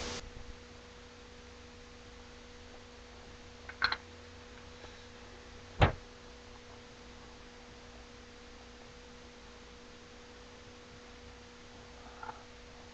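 A faint steady electrical hum, broken by three brief knocks or clicks: one about four seconds in, a sharper one about six seconds in, and a faint one near the end.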